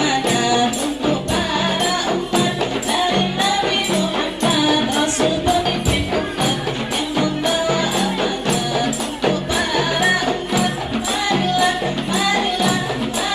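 Rebana ensemble of frame drums with jingles, playing a steady rhythm of about two to three strokes a second under a sustained melody, with no singing.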